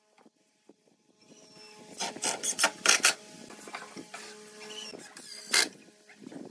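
Wooden cabinet panels being handled and shifted on a wooden workbench. There is a cluster of sharp wood knocks about two seconds in and one loud knock near the end, over a faint steady hum.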